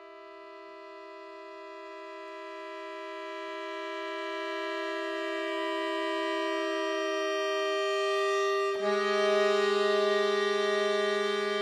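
Solo accordion holding a sustained chord that swells steadily louder. A little before the end the chord changes, with a new lower note entering.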